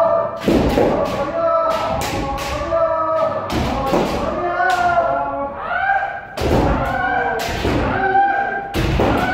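Kendo practice: several people shouting kiai, with many loud thuds and cracks of feet stamping and bamboo shinai striking in quick succession.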